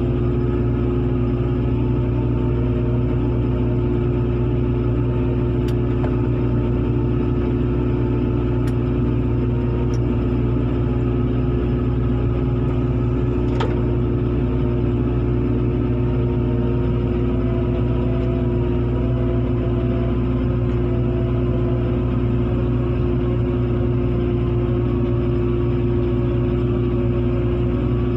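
Heavy diesel engines of a wheel excavator and a truck running steadily under load, a constant drone with a steady hum. A single sharp click about halfway through.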